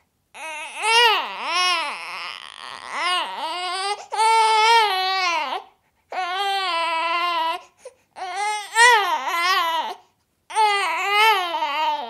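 Baby whining: about five stretches of wavering cries that rise and fall in pitch, with short pauses between them.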